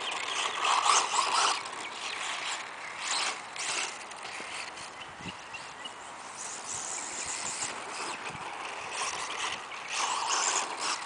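Losi Mini 8ight electric 1/14-scale RC buggy, running on a 2S LiPo, driving around a dirt track. Its motor and tyres on the dirt come and go in loudness as it laps, louder near the start and again near the end.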